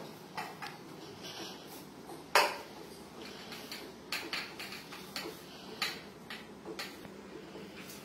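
Steel kitchenware clinking: a steel tumbler knocked and tipped against a steel plate as spice powder is measured out, a handful of scattered clinks, the loudest about two and a half seconds in.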